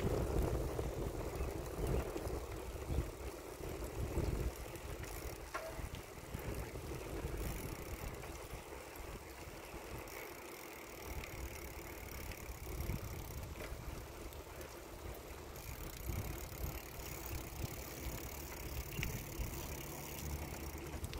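Schwinn mountain bike being ridden on asphalt: tyres rolling, with wind rushing over the microphone in an uneven low rumble.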